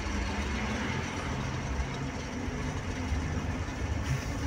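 Bus engine running steadily as the bus drives along, heard from inside the driver's cabin, with road noise.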